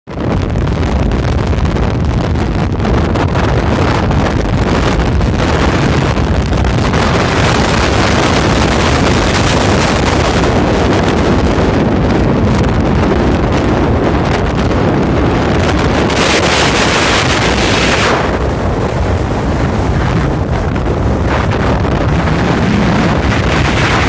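Strong wind buffeting the phone's microphone in a steady low rumble, with sea surf breaking on the shore below under it. For a couple of seconds about two-thirds of the way through it turns into a harsher hiss.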